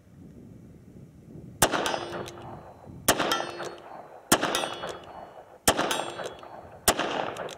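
Smith & Wesson 686 Plus .357 Magnum revolver fired five times at a steady pace, a shot about every second and a quarter, starting about a second and a half in. Each shot is followed by the ringing clang of a steel target being hit.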